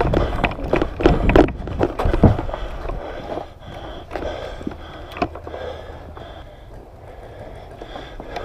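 Footsteps running through snow with a rumble of handling and wind on a body-worn camera's microphone, loud and uneven for the first couple of seconds. Then it quietens, with a few sharp clicks.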